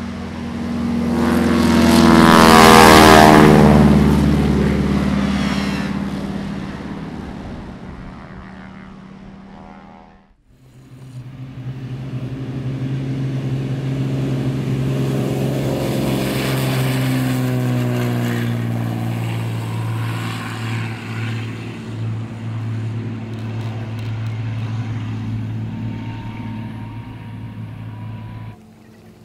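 Light propeller airplanes passing along the runway, twice. The engine-and-propeller drone swells, then falls in pitch as each one goes by. The first pass is loudest about three seconds in; after a break, the second drone builds and runs steadily before cutting off suddenly near the end.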